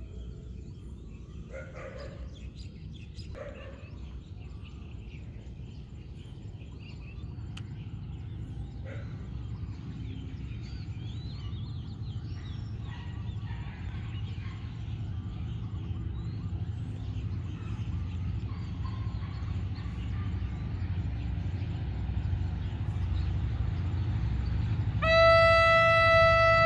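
A diesel locomotive hauling a passenger train approaches, its low rumble growing steadily louder. About 25 seconds in it sounds its horn in one long, loud, steady blast.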